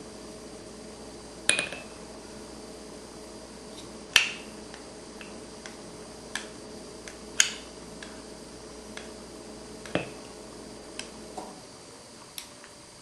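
Sharp taps of a tablespoon knocking against a cup or glass to get the last of the honey off: four louder knocks a few seconds apart, with fainter clicks between.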